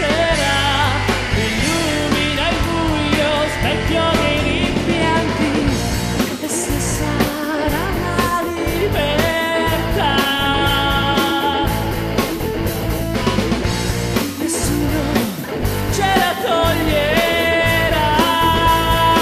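Rock song playing: a full band with drums, bass and guitar, and a lead melody that bends into and holds long notes.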